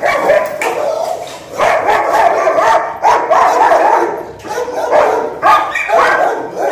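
Dogs barking over and over from their kennels, in short calls one after another, as a strange dog is led past on a leash.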